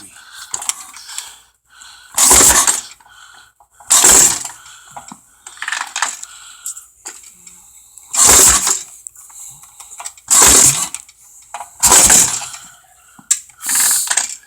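About six short metallic clinks and rattles a second or two apart, with no engine turning over or running: the rebuilt Ironhead fails to crank because its battery is not connected.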